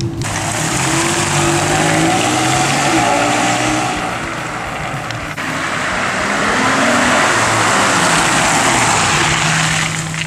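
Volga Siber with a swapped-in Honda J32A 3.2-litre V6 accelerating, the engine climbing in pitch twice, under heavy road and wind noise.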